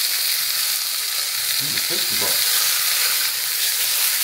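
Beef steak sizzling in a hot stainless steel frying pan: a steady frying hiss.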